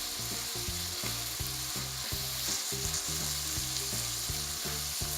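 Onion-tomato masala with ground spices frying in ghee in a pan, sizzling steadily as the tomatoes cook down.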